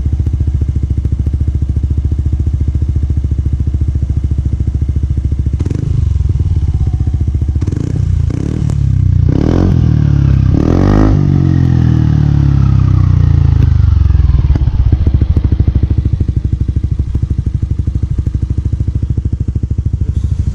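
Yamaha NMAX 155 single-cylinder scooter engine through a JVT V3 aftermarket exhaust, idling with a deep, pulsing note. From about six seconds in, the throttle is blipped several times in quick succession, and the revs then fall away slowly before the engine settles back to idle.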